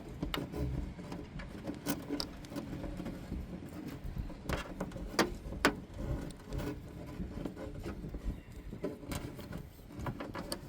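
Irregular light clicks and rattles of small parts and tools being handled at the back of a Jeep, over a low steady rumble.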